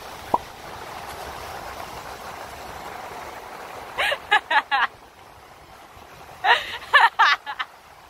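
Sea surf washing steadily onto a sandy beach. About halfway through and again near the end, a person's voice calls out in short bursts over the waves.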